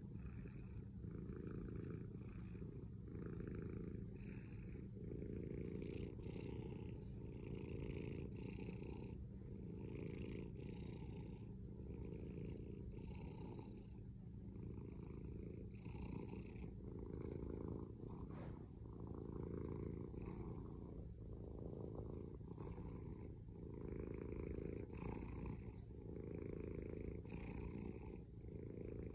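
Domestic cat purring loudly and continuously while being stroked on the head, a low steady rumble that swells and eases roughly once a second with its breathing.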